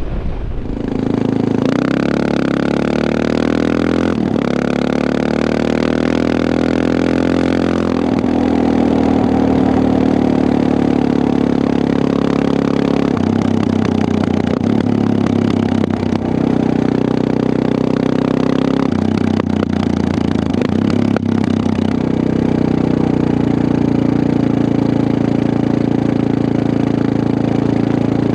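Suzuki DR650's single-cylinder four-stroke engine running under way, its note rising and dropping several times as the bike changes gear and speed.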